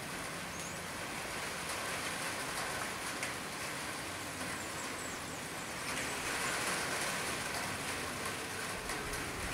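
Light rain falling steadily on a corrugated metal roof, an even hiss with a few scattered drop ticks.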